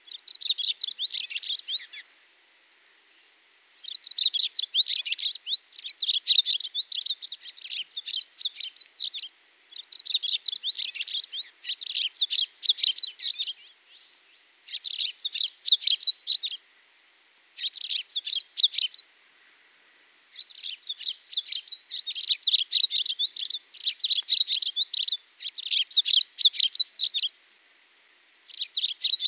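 A songbird singing, a run of busy phrases of quick high chirps and trills, each lasting a second or two with short pauses between.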